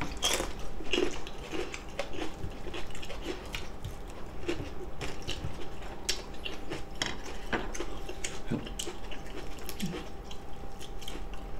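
Close-up eating sounds: a crunchy bite into a raw green chili pepper at the start, then scattered chewing and light clicks of chopsticks on plates.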